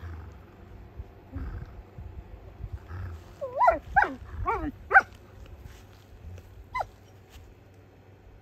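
German Shepherd giving a quick run of about five short, high whining yips, then one more a couple of seconds later: play vocalising.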